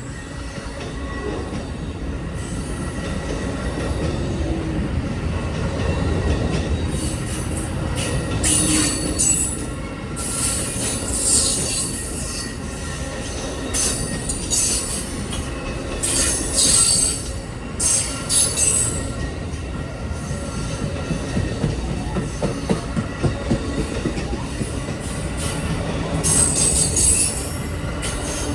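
Amtrak Auto Train cars rolling past at speed: a steady rumble of steel wheels on rail, with clatter over the joints and repeated bursts of high-pitched wheel squeal.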